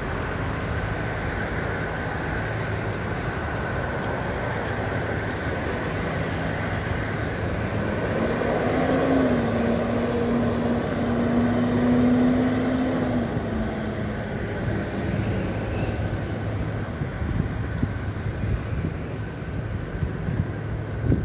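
City street traffic noise with a steady hum, over which a passing motor vehicle's engine rises in pitch about eight seconds in and holds a steady drone until about thirteen seconds in. A faint steady high whine runs underneath.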